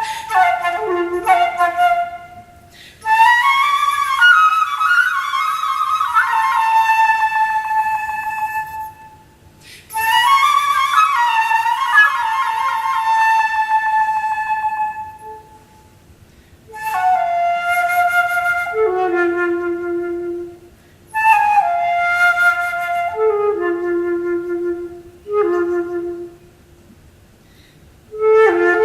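Unaccompanied concert flute playing phrases broken by short pauses, several of them descending to held low notes.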